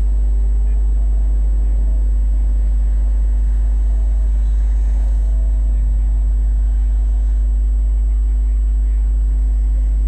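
Steady low rumble of town street traffic, with no distinct passing vehicle or sudden sound.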